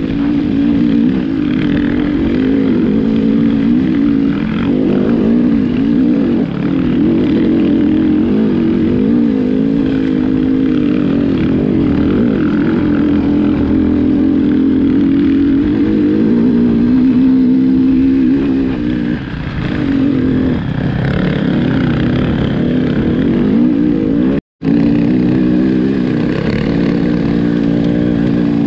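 Enduro motorcycle engine running under load while being ridden, its revs rising and falling constantly. The sound cuts out for a split second near the end.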